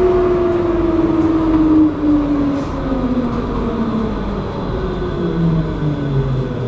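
Tram's electric traction motors whining and falling steadily in pitch as the tram slows down, heard from inside the car over a low rumble of the running gear.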